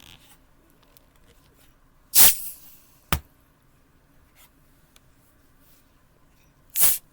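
Seltzer cans being cracked open: a sharp hiss that trails off briefly, a click just after it, and a second short hiss about four and a half seconds later.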